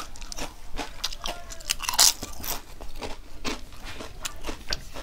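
Crisp papad crunching between the teeth: repeated bites and chewing crackle throughout, with the loudest crunch about two seconds in.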